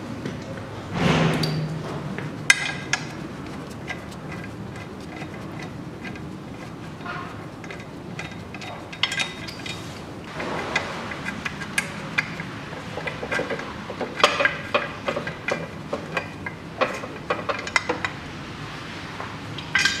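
Spanner and bolts clinking and knocking against steel as the bolts of a Chevrolet Lanos gearbox mount bracket are undone and the bracket is taken off. The clicks and knocks are scattered, some in quick runs, with a short noisy burst about a second in.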